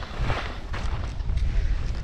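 Wind buffeting the microphone of a skier going downhill, a gusty low rumble, with swells of skis scraping and hissing over the snow.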